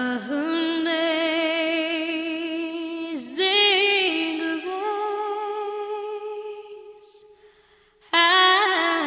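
Background music: a woman's voice singing long held notes with vibrato, a slow phrase that fades away and then starts again about eight seconds in.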